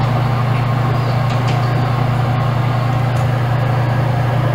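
A loud, steady low hum with an even whirring rush over it, like a motor or fan running, and a few faint ticks.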